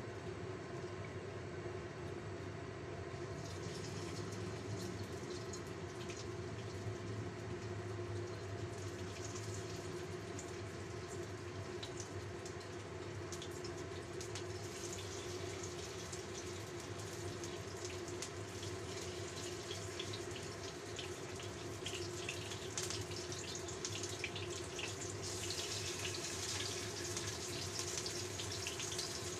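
Flour-coated fish pieces frying in hot oil in a stainless steel wok: a steady sizzle with fine crackling that grows as more pieces are laid in, and is loudest near the end. A steady low hum runs underneath.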